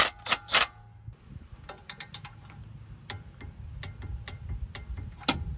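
A cordless ratchet runs briefly on a 13 mm brake caliper bolt and stops about a second in. Then a hand torque wrench's ratchet clicks slowly and evenly as the bolt is tightened toward about 20 ft-lb, with one louder click near the end.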